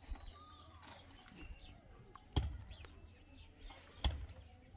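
Birds chirping with a few short calls, and two sharp knocks about a second and a half apart in the second half, the loudest sounds here.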